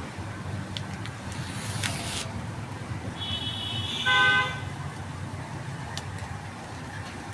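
A vehicle horn toots briefly about four seconds in, over a steady low traffic rumble. A short hiss comes a couple of seconds before it.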